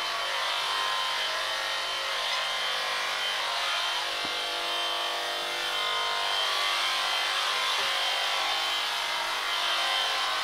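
Electric sheep shears running steadily, the handpiece cutting through a sheep's thick fleece.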